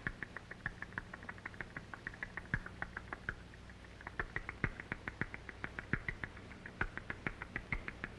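Rapid, high-pitched chirping squeaks, several a second, with a brief pause about three seconds in, over a steady low hum.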